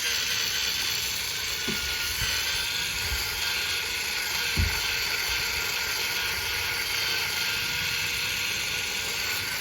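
Cordless electric spin scrubber running steadily, its small motor whirring while the brush head scrubs the floor, with two soft thumps, about two and four and a half seconds in.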